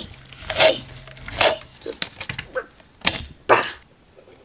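Painter's tape being peeled off a painted storage carousel: several short tearing sounds over the first three and a half seconds, with light handling noise between them.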